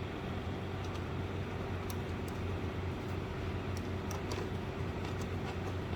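Steady low background hum, like a running fan or machine, with a few faint light clicks scattered through it, as from small nuts and screws being handled.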